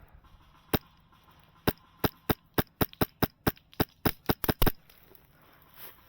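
An airsoft gun fires about fifteen sharp single shots. The first two come a second apart, then the shots quicken to about four a second before stopping.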